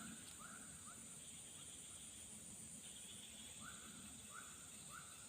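Faint wildlife ambience: a steady high-pitched insect chorus, with short chirping animal calls repeated about every half second, pausing in the middle and starting again.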